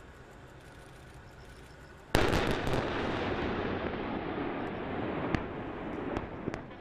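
A salvo of live-fire rounds exploding on a target range: several sharp blasts in quick succession about two seconds in, then a long rolling rumble that slowly dies away, with a few lone cracks near the end.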